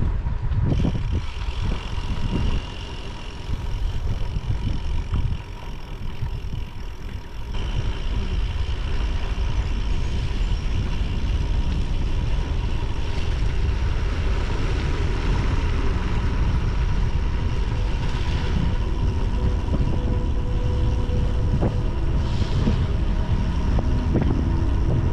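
Wind buffeting the microphone and the rumble of bicycle tyres rolling on a gravel road.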